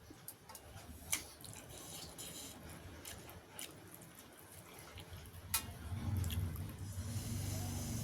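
Eating sounds: wet chewing and a few sharp clinks of a spoon on a plate, the loudest about a second in and just before six seconds. A low steady machine hum comes up underneath about six seconds in.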